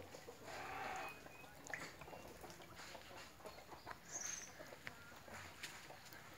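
Faint farmyard ambience: a brief animal call about half a second in and a short high bird chirp about four seconds in, with scattered faint clicks.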